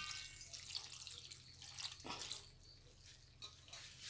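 Cold water poured over boiled macaroni in a stainless steel colander, splashing through the pasta and draining out of the holes, fading away within a few seconds: the cooked pasta being rinsed so the pieces don't stick together.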